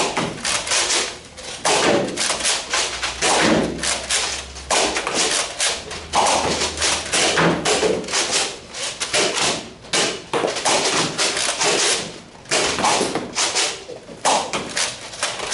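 Nerf Rival blasters firing foam balls, with the balls thudding against and bouncing off surfaces: many sharp pops and thuds in quick, irregular succession.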